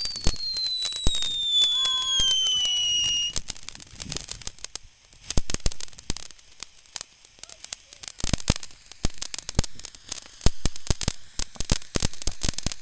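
Silver Streak ground fountain firework: a high whistle gliding steadily down in pitch that cuts off about three seconds in, over sharp crackling pops that keep going throughout.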